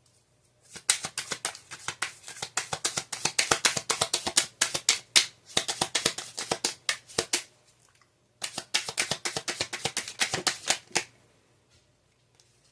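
Tarot cards being shuffled by hand: two runs of rapid card flicking and snapping, broken by a short pause about seven seconds in.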